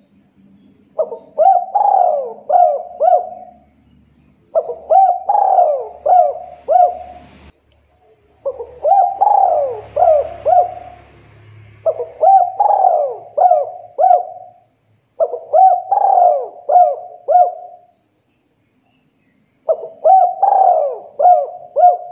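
Spotted dove cooing: six phrases in a row, each a quick series of four or five coos, with a pause of a second or two between phrases.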